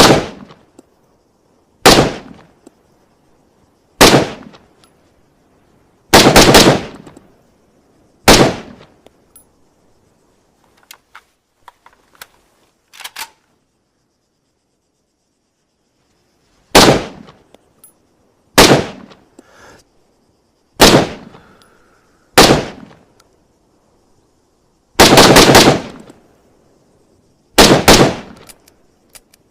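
SVD Dragunov semi-automatic rifle (7.62×54mmR) firing, mostly single shots about two seconds apart, with three quicker strings of shots. Each shot is sharp with a short tail. There is a pause near the middle broken only by a few faint clicks.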